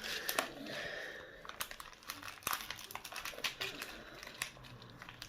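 Plastic toy packaging crinkling and crackling as it is handled and pulled at to open it, in a run of short, irregular crackles.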